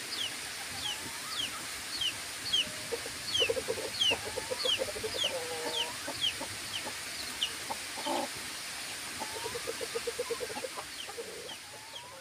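Chicks peeping steadily, short falling peeps about twice a second, while adult chickens give runs of rapid low clucks, about three seconds in and again near ten seconds, with a single louder squawk between them.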